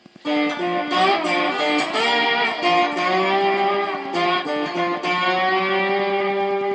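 Lap steel guitar playing a solo instrumental intro, notes sliding between pitches, settling into a long held note in the second half.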